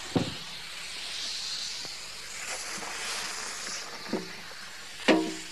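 A fire-heated rock hissing and sizzling as it is plunged into the water of a bathtub, a steady high hiss throughout. A light knock comes just after the start, and two short exclamations from a person come near the end, the second the loudest sound.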